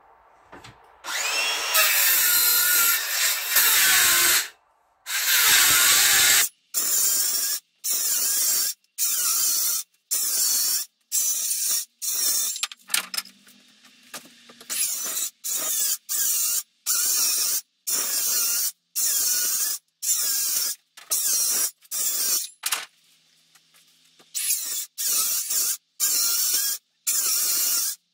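Cordless circular saw cutting wooden battens: two longer cuts, then a run of short, evenly spaced bursts about once a second, each starting and stopping abruptly.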